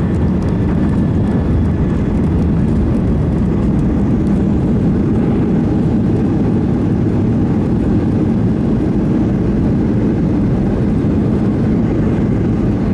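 Steady low rumble heard inside the cabin of a jet airliner on its landing roll down the runway, with ground spoilers raised and flaps down as it slows after touchdown.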